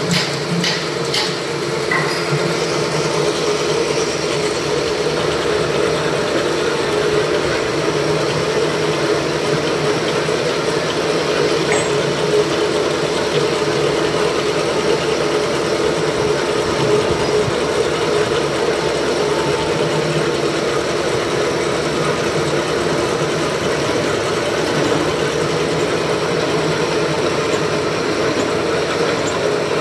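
A few sharp metal clicks in the first couple of seconds, then a milling machine running steadily, its cutter machining a part under flowing coolant, giving a loud, even mechanical drone.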